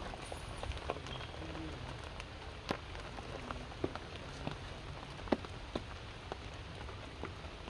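Rain pattering and dripping onto leaves and wet stone: a steady hiss with scattered louder single drops.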